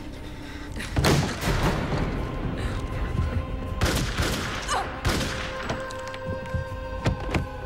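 Pistol shots fired in a volley: several sharp shots spread over a few seconds, the first about a second in the loudest, over sustained music.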